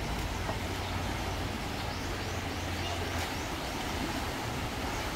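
Fast-flowing river rushing around concrete bridge piers: a steady wash of water with a low rumble underneath. A few faint high chirps come about halfway through.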